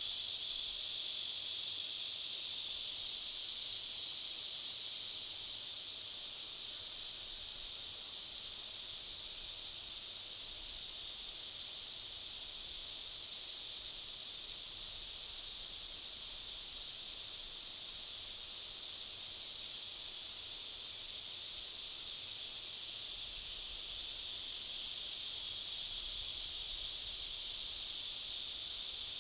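A chorus of cicadas buzzing continuously, a dense, high-pitched drone that stays level, easing slightly a few seconds in and swelling again near the end.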